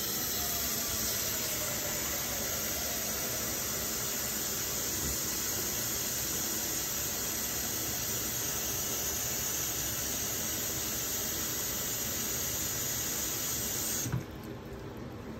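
Tap water running steadily from a kitchen faucet into a saucepan as it fills. The faucet is shut off about a second before the end, and the flow stops suddenly with a small knock.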